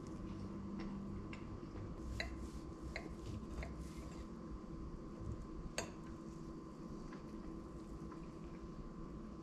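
A metal knife and fork cutting a soft, syrupy pancake on a ceramic plate: a series of light clinks and soft squishing, with one sharper clink about six seconds in.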